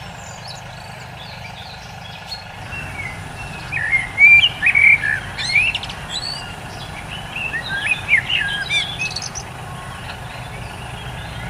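Birds chirping: many short calls that swoop up and down in pitch, coming in a busy cluster from about four seconds in until just before the end, over a low, steady background rumble.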